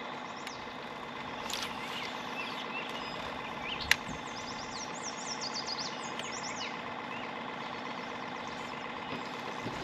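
A boat motor runs with a steady hum. A songbird sings a run of quick, falling chirps through the middle, and one sharp click comes just before the chirps begin.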